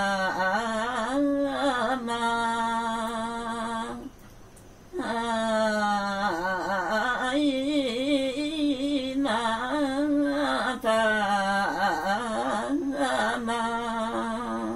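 A woman singing a Limbu tam:awke (tamke) folk song solo, unaccompanied, in long held notes with wavering ornaments. There is a short breath pause about four seconds in.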